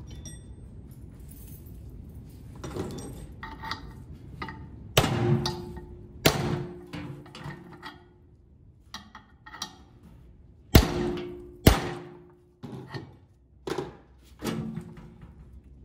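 Hammer tapping a punch into the end of a rusted blower-motor shaft to make a centre hole: a series of irregular metal taps, several of them ringing briefly, with two of the loudest close together about eleven seconds in.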